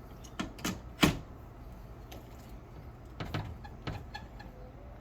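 Sharp metallic clicks and taps from a hand threaded-insert rivet tool and insert being handled as the next insert is put on. Three clicks in the first second, the third the loudest, then two more about three and four seconds in.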